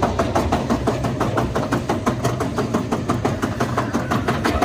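Pepsi Max Big One roller coaster's chain lift clattering as the train climbs the lift hill, a fast, even run of about seven clicks a second over a low rumble, heard from the train.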